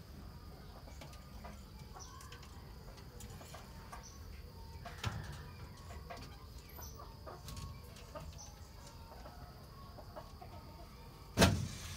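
Chickens clucking faintly in the background over a steady high-pitched hum, with one sharp thump shortly before the end.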